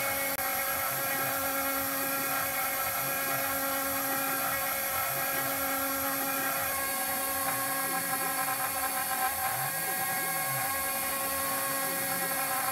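CNC milling spindle cutting aluminium plate with an end mill: a steady high-pitched whine that holds level throughout, with the hiss of the mist-coolant spray.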